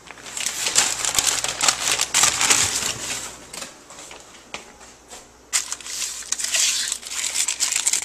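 Paper wrapping being pulled off a raw fish fillet and crumpled by hand: crinkling and rustling in two spells, with a lull from about four to five and a half seconds in.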